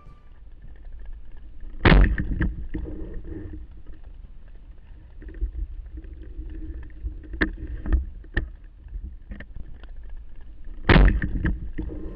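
Knocks and thuds aboard a small boat over a low rumble of water, with two heavy thumps, one about two seconds in and one near the end, and lighter clicks in between.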